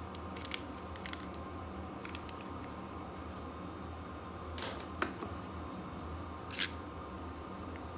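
Small handling clicks and crinkles from a foil packet being turned over on a wooden workbench, with a sharper click about five seconds in. About a second and a half later comes a brief louder scrape as a snap-off utility knife is brought to the packet. A steady low hum runs underneath.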